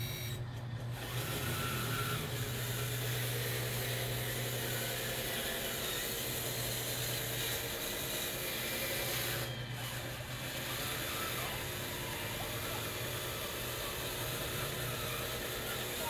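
RC hydraulic bulldozer running as it tracks through and rips up soil: a steady low hum with a higher machine tone that rises and falls as it works.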